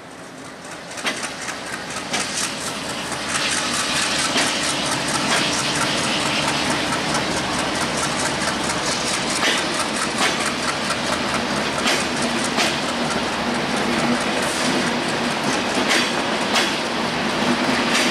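Broad-gauge passenger coaches of an intercity express train rolling slowly past, their wheels clacking over the rail joints in a steady run of clicks. The sound builds over the first few seconds, then holds steady.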